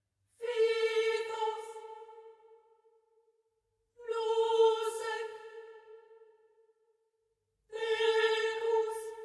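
Soundtrack music: one sustained note at the same pitch, sounded three times about three and a half seconds apart, each starting suddenly and fading out over a couple of seconds.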